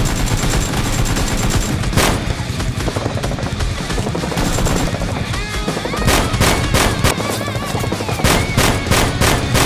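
Gunfire sound effects, rapid machine-gun fire and single shots, over action background music. One sharp shot comes about two seconds in, and the firing grows dense from about six seconds in.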